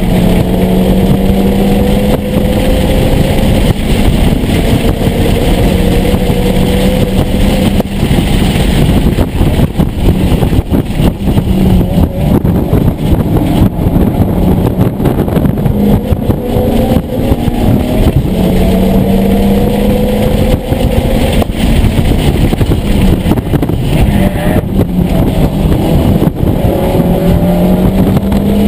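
Mitsubishi Lancer Evolution IX's turbocharged four-cylinder engine heard from inside the cabin, pulling hard through the gears: its pitch rises steadily over several seconds on each pull and drops back at each shift. Heavy road and wind noise runs underneath.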